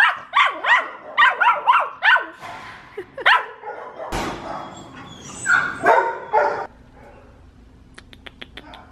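Small dog barking over and over in sharp, high yips, about three a second. After a short break it barks again in a loud cluster, then it goes quieter, with a few light clicks near the end.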